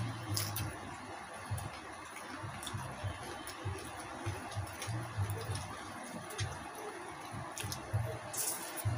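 Close-up mukbang eating sounds: wet chewing and lip smacks with scattered small clicks as two people eat crispy fried pig's head by hand. There is a short crackle near the end as meat is pulled off the head.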